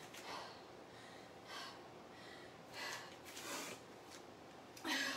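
A woman breathing hard, with about five heavy breaths, the loudest near the end: she is out of breath from exertion.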